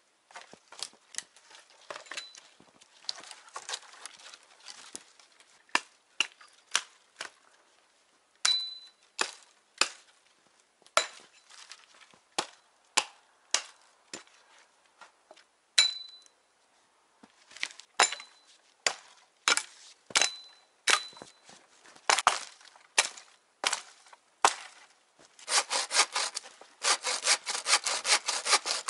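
Hand saw working in wood: scattered sharp strokes and snaps, some with a brief high metallic ring, then from about three-quarters of the way in, fast steady sawing strokes through a branch.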